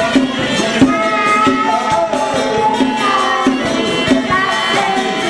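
Traditional Taiwanese temple ritual music: a high, sliding melody line over steady drumming and rattling percussion.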